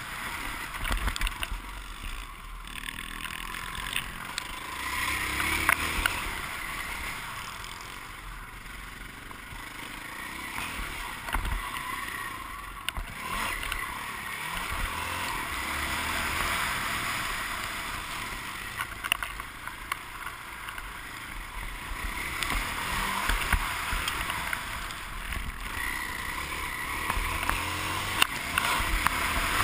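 Motocross bike engine rising and falling in pitch as the rider opens and closes the throttle round the track, muffled by wind rushing over the helmet camera's microphone, with occasional sharp knocks from bumps.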